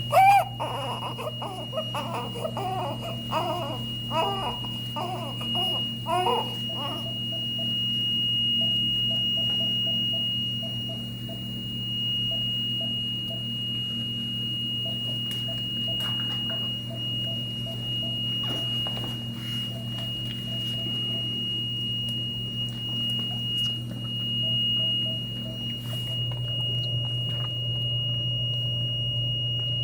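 An infant makes high-pitched, rising-and-falling squeaking sounds for about the first seven seconds. After that, short electronic beeps repeat in irregular runs over a steady high tone and a low machine hum.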